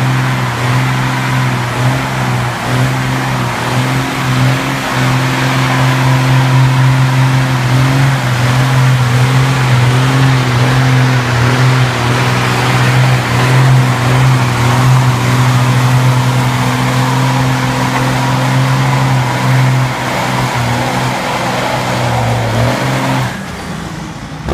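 Early-1990s Dodge Ram pickup doing a burnout: the engine is held at steady high revs for over twenty seconds while the rear tyres spin on the ground. Near the end the throttle is released and the engine note drops away.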